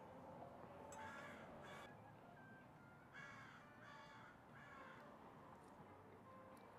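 Near silence, with a bird calling faintly about five times in short, separate calls.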